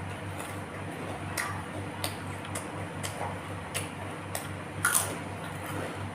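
Close-up eating sounds: chewing and wet mouth clicks, roughly one every half second and loudest about five seconds in, over a steady low hum.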